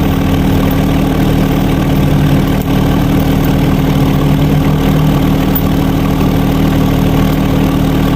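A motor or engine running steadily with a constant low hum and even noise, with no change in speed.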